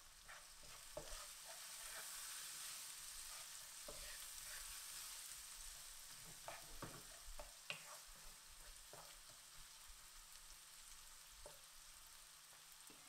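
Sliced onions and green chillies frying in oil in a pan: a faint steady sizzle, with a wooden spoon scraping and knocking against the pan now and then as they are stirred.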